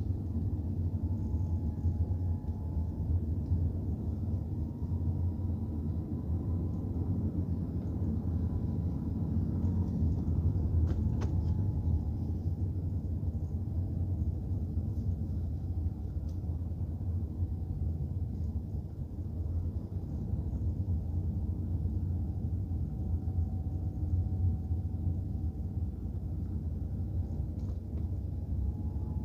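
Car's engine and tyre rumble while driving, picked up inside the cabin by a dash cam: a steady low rumble with a faint whine that wavers up and down in pitch. A single sharp click sounds about eleven seconds in.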